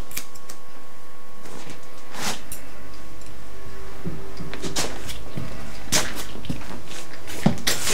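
A few scattered sharp clicks and taps from a barber's scissors and comb during a haircut, over a faint steady hum.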